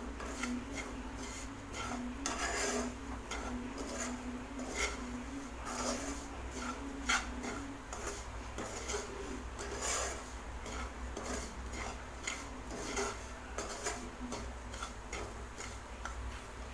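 A cooking utensil scraping and knocking irregularly against a frying pan while stirring semolina and grated coconut as they dry-roast in ghee.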